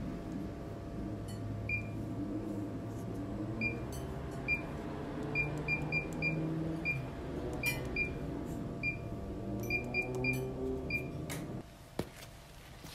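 A kiln's digital controller keypad beeping as its buttons are pressed to enter the firing program: about fifteen short, high beeps at an uneven pace, some in quick runs of three or four. A low steady background runs beneath them and cuts off a second before the end.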